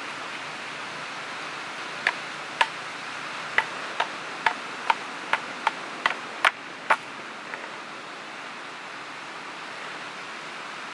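Knife blade chopping and shaving an upright wooden stick to make kindling: about a dozen sharp wooden knocks, roughly two a second, between about two and seven and a half seconds in, over a steady hiss of surf.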